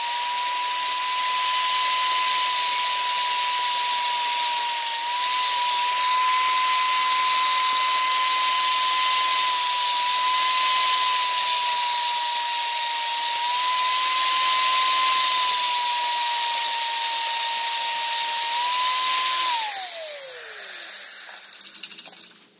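Electric angle grinder running with a steady high whine, its disc grinding the flared heads off the pins of a #40 roller chain so the pins can be pushed out to break the chain; the pitch dips slightly now and then as the disc bites. Near the end it is switched off and spins down with a falling whine.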